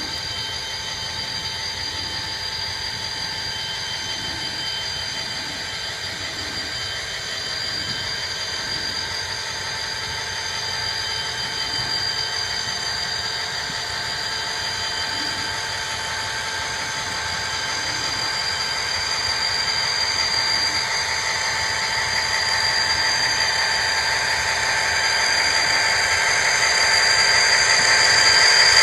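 Onboard sound of an HO-scale Athearn RTR SD40R model locomotive: a small speaker playing a steady diesel engine sound, with a steady whine on top. It grows gradually louder as the locomotive comes closer.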